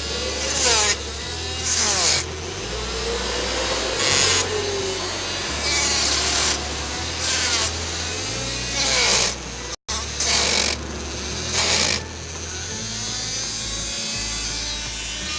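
A small power tool worked against material in short bursts, about nine in all, roughly a second or so apart, over a steady mechanical hum.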